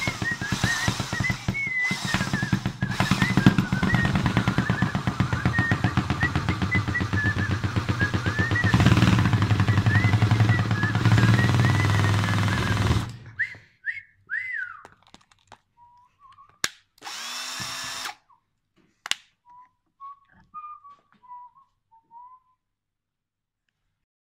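Power drill running with a toy pony spinning in its chuck: a steady motor hum with a fast rattle and a wavering high whistle over it, cutting off suddenly about halfway through. After that come a few short squeaks and clicks.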